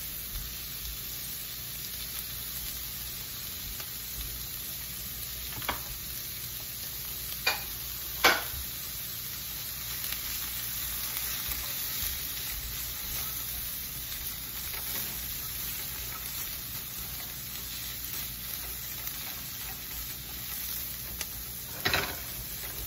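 Carrots, capsicum and cabbage sizzling in a hot wok as they are stir-fried, a steady hiss. Three sharp knocks against the pan come about a third of the way in, and another near the end.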